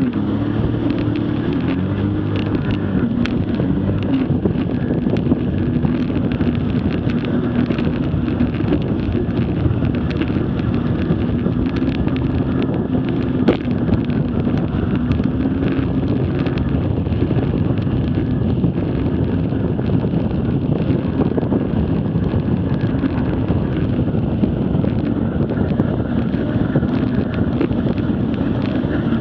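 Jet ski engine running under way as the craft speeds up and cruises, with a steady engine tone under a constant rush of water spray and wind buffeting the mounted camera's microphone.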